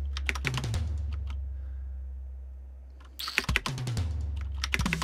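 Clicks and key taps on a computer keyboard: a quick flurry in the first second, a pause, then another run from about three seconds in, over a low steady hum.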